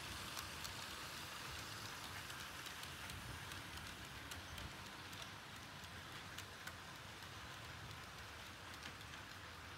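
HO scale model train rolling along the layout track: a faint steady rumble and hiss of the running locomotives, with scattered light clicks from the wheels on the rails.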